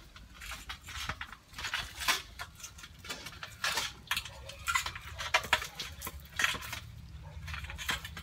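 Irregular clinks and scrapes against a large stainless-steel basin as crabs are handled in shallow water, a few sharp knocks a second, some louder than the rest.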